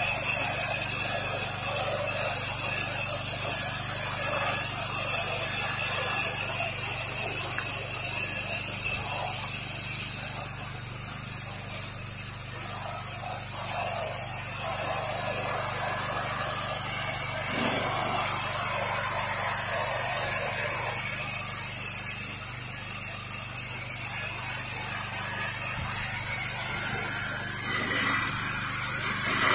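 Pressure washer running with a steady hum while its spray gun hisses, putting a sodium hypochlorite soft-wash application onto vinyl siding. The hiss eases about ten seconds in and builds again toward the end.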